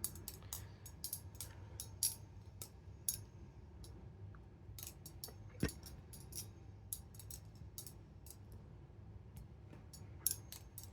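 Full-titanium Remshi Designs Kuno balisong trainer being flipped: a rapid, irregular run of light metallic clicks and clacks as the handles swing and knock together.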